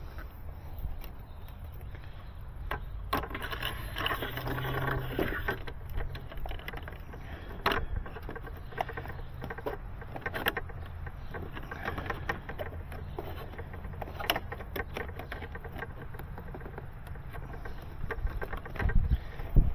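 Hands working fiber drop cable and small plastic fittings: scattered light clicks, knocks and rustles, with a busier stretch of rustling a few seconds in, over a steady low rumble.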